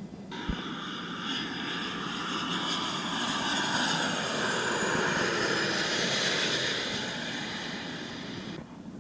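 Twin-engine jet airliner passing low overhead on its landing approach, gear down: a loud engine whine over a broad rush that swells to its loudest around the middle. It starts and cuts off suddenly.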